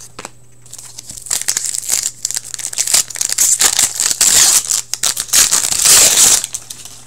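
Foil wrapper of a 2015-16 Upper Deck Series 2 hockey card pack being torn open and crinkled by hand. It is a rustling crackle that starts about a second in, is loudest near the end, then stops abruptly.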